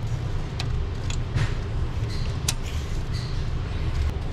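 Steady low rumble with scattered light clicks and knocks at uneven intervals.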